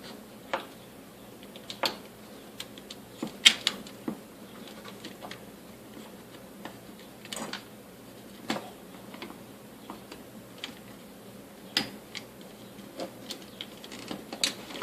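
Irregular sharp clicks and taps of small plastic and metal parts of an Arrow ET2025 electric stapler being handled and fitted back together.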